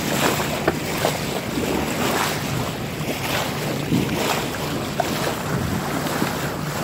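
Bow wave of a sailboat hissing and splashing along the hull, surging in repeated splashes, with wind buffeting the microphone.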